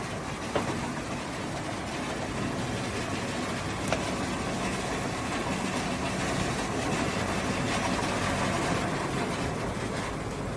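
Automatic tire block cutting machine running steadily, its motor and cutter working through waste tires, with two sharp knocks, one just after the start and one about four seconds in.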